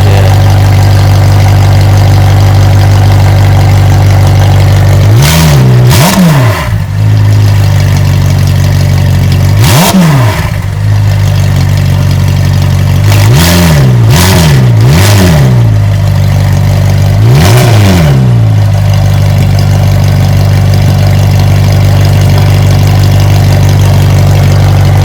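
McLaren 720S twin-turbo V8 with catless downpipes and a straight-pipe exhaust, running with a loud steady drone. About eight quick throttle blips come in small groups: a pair about five seconds in, one near ten seconds, three in a row around fourteen seconds and a pair near eighteen. Each rises sharply in pitch and falls straight back.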